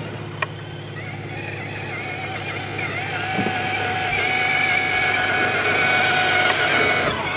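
Electric motor and gear whine of a six-wheeled RC scale truck crawling through sand. The whine rises slightly and grows louder as the truck comes closer, then stops just before the end.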